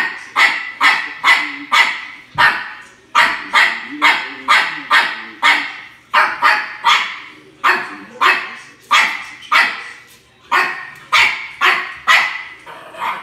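Maltese barking over and over, about two high-pitched barks a second with a few short pauses.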